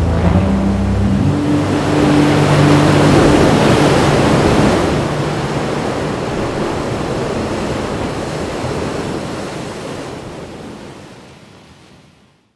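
Heavy ocean surf from a big breaking wave: a loud rushing wash that swells over the first few seconds, then slowly fades out to silence at the end. A few low held notes sound in the first couple of seconds.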